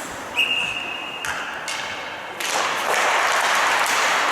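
Referee's whistle blown twice in an ice rink: a shrill note held for just under a second, then a shorter, slightly lower note. After the whistles a steady broad rush of rink noise swells up.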